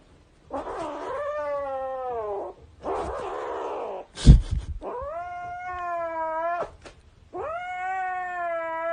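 A cat yowling in three long, drawn-out calls. Between the first and second call there is a rough noisy stretch and then a heavy thump.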